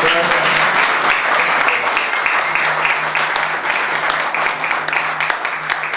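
Audience applauding, dense and steady, with a low steady hum underneath from about halfway through.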